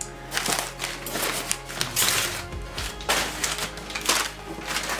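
Crumpled brown kraft packing paper rustling and crinkling in several bursts as it is pulled out of a cardboard box, with background music underneath.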